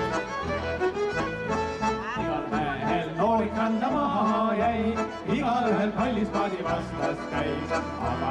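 Background music: a tune with a steady pulsing bass and a wavering lead melody.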